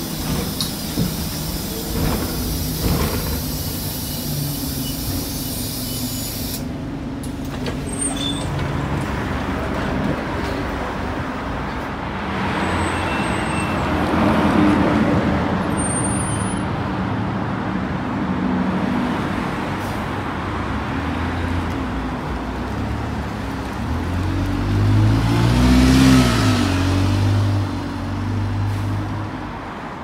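Alexander Dennis Enviro 200 single-deck bus running, heard first from inside and then from the kerb as it waits and pulls away. Near the end, when it pulls away, its engine note rises and falls loudly: the acceleration sound the uploader calls weird.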